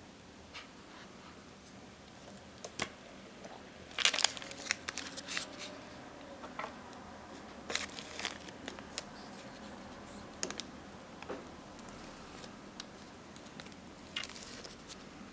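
Close-up handling noise: scattered small clicks and crinkly rustles of tweezers and fingers working on paper, densest about four seconds in, again around eight seconds and near the end.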